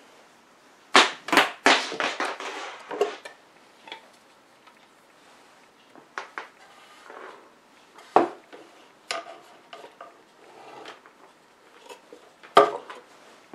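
Small hard objects clattering and knocking as they are handled, likely during a swap of the meter's C cell battery: a burst of rattling about a second in, then scattered single knocks, one of the loudest near the end.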